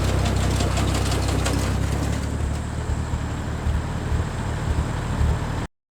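Tractor engine running steadily, with some clattering over the first two seconds. The sound cuts off suddenly near the end.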